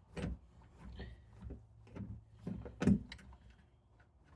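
A handful of sharp metallic clicks and knocks from a Phillips screwdriver working the screws of an old keyed entry door knob, with the loose knob hardware rattling. The loudest knock comes about three seconds in.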